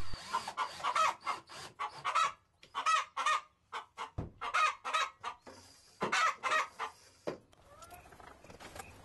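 Chickens clucking: a string of short, repeated calls that thin out and fade near the end.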